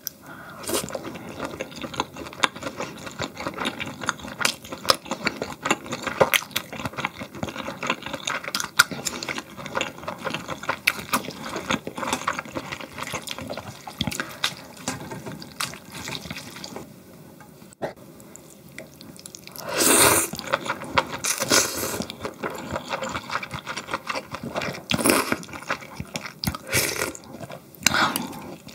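Close-miked eating sounds of marinated pork ribs and cold water naengmyeon: wet chewing and slurping with many small sharp clicks, and a few louder wet bursts about two-thirds of the way through and near the end.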